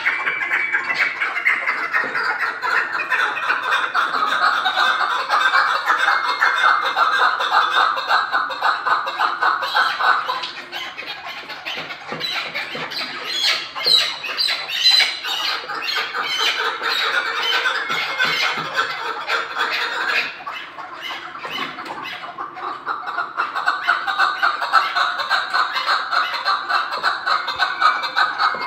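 Chukar partridges calling in a fast, continuous chatter of repeated clucks. The chatter is loudest at first, eases off about ten seconds in, and swells again near the end.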